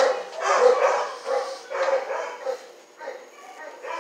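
Dogs barking in a dog pound's kennels, in short repeated barks. The barking is loudest in the first couple of seconds and grows fainter toward the end.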